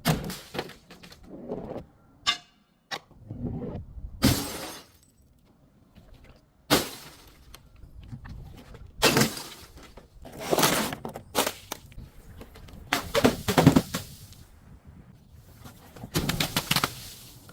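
Objects being crushed and broken in a series of crunching, cracking bursts, about seven of them at irregular intervals of a second or more, with quieter gaps between.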